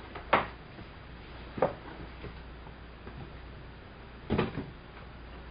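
Cardboard box and plastic packaging being handled: a few short knocks and rustles, the loudest about a third of a second in, another at about a second and a half, and a cluster near four and a half seconds, over a low steady hum.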